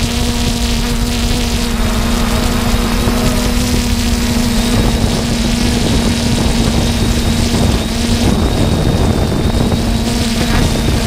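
3DR Solo quadcopter's electric motors and propellers buzzing in flight, a steady hum heard up close from the drone itself, with wind rushing over the microphone. The hum's pitch wavers briefly about two-thirds of the way through.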